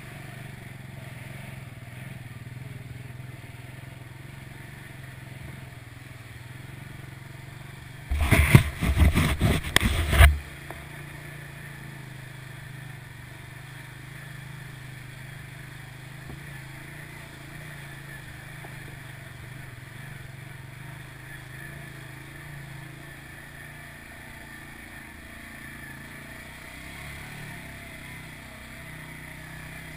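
An ATV engine runs steadily at low speed as the quad is driven through a shallow creek. About eight seconds in comes a loud burst of clattering knocks lasting about two seconds.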